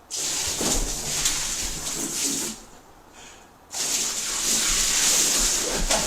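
Water spraying in two hissing bursts of about two seconds each, with a short pause between them.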